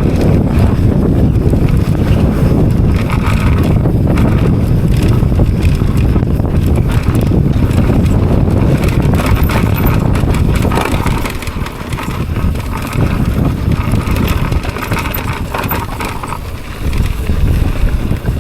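Wind buffeting the microphone over the rumble and rattle of a mountain bike riding down a rough trail. It eases off about eleven seconds in.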